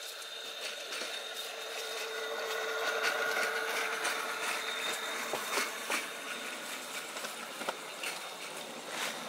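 Electric rail kart, a 300-watt motor on a 24-volt drill battery driving one wheel, running along steel rails: a steady electric whine with the wheels rolling on the track, growing louder over the first few seconds, with a few sharp clicks in the second half.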